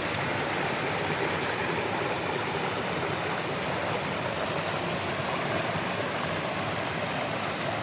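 Mountain creek water rushing steadily over rocks, an even, unbroken rush.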